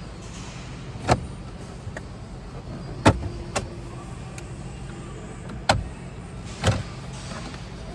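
Sharp plastic clicks and knocks, five in all, as Ford F-150 interior trim panels are pried loose and their clips pulled free, over a steady low hum.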